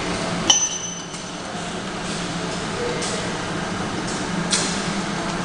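Automatic top-and-side labeling machine for stemmed wine glasses running: conveyor and drive motors give a steady hum and clatter. A sharp click with a brief ring about half a second in, and a smaller click near the end.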